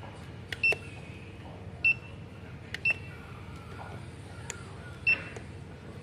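JJ-268C remote-control copier machine beeping four times, short high single-pitch beeps at uneven intervals, as it picks up the signals of the remotes held over it in data-compare mode. Faint clicks come just before some beeps.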